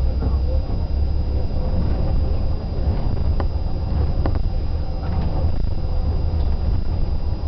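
Bus engine and road noise heard from inside the moving bus: a steady low rumble, with a couple of sharp clicks or rattles about midway.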